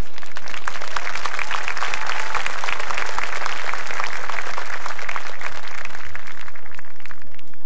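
A large crowd in stadium bleachers applauding just after a marching band's music ends, a dense mass of claps that cuts off suddenly at the end.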